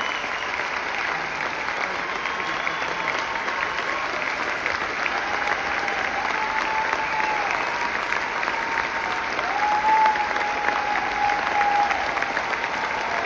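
Large arena audience applauding in a steady, dense wash, with several long held cheers from individuals rising above it, the loudest about ten seconds in.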